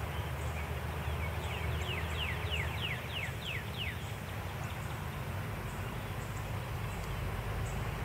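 A songbird singing a run of about a dozen quick falling whistled notes, starting about a second in and ending around four seconds, over a steady low rumble.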